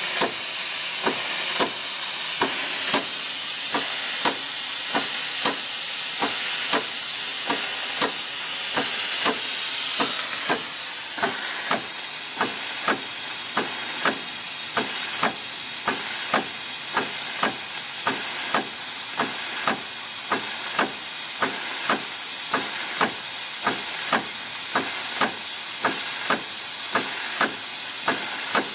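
Southworth steam boiler feed pump working, clacking about one and a half strokes a second over a steady hiss of escaping steam. It is pumping water into the boiler against boiler pressure.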